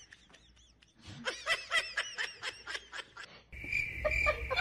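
A person giggling: a quick run of short, high-pitched laughs, about five or six a second, starting about a second in. Near the end a steady, high, pulsing chirring tone comes in.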